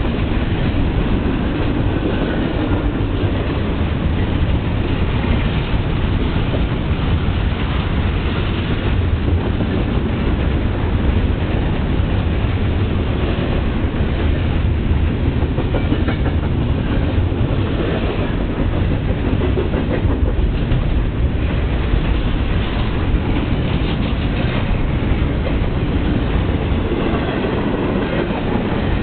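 CSX double-stack container train's well cars rolling past close by: a steady, loud rumble with the clickety-clack of wheels on the rails.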